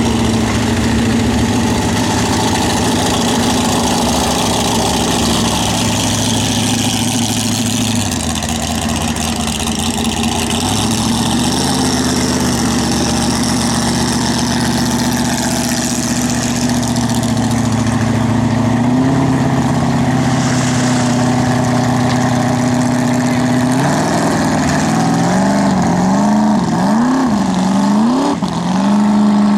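Eliminator Daytona drag boat's supercharged engine running at low speed with a steady note that steps up in pitch a few times, then, about 24 seconds in, revved up and down in quick swells as the boat gets on the throttle and turns.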